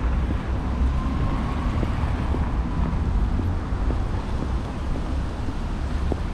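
Street ambience of car traffic driving past on a city street, mixed with a steady low wind rumble on the microphone.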